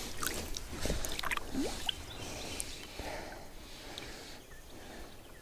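Water sloshing and splashing against the side of a boat as a large musky is held in the river to be released, with a few light knocks and clicks.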